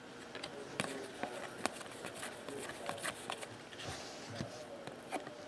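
A stack of trading cards being flipped through by hand, making light, irregular clicks as card edges snap and slide off the pile.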